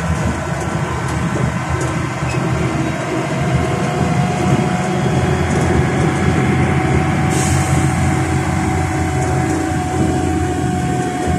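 Iveco Myway bus driving, heard from inside the cabin: steady engine and road rumble with a thin whine that rises slightly in pitch. About seven seconds in, a high hiss joins.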